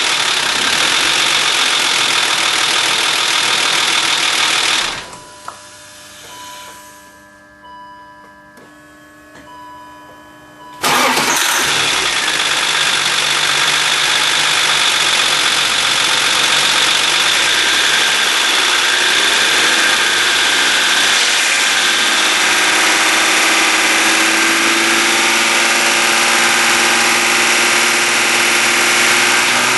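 BMW E39 engine running, shut off about five seconds in, then started again about six seconds later and running steadily. The quiet gap holds a few faint short tones. The engine has a bad noise that the owner suspects comes from the lifters or the VANOS camshaft control.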